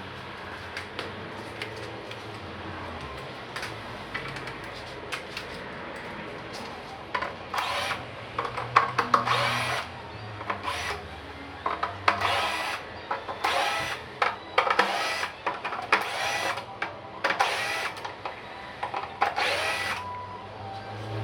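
A handheld power drill or driver running in many short, repeated bursts, starting about seven seconds in, after a steadier low hum.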